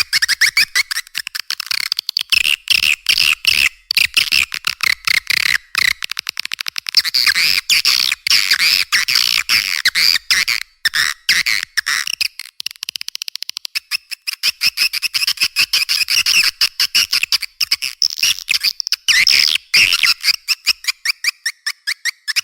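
Swiftlet lure recording: a dense, unbroken stream of rapid twittering chirps and clicking trills from swiftlets, with nothing below the high-pitched calls. It is a calling track played to draw swiftlets into a nesting house.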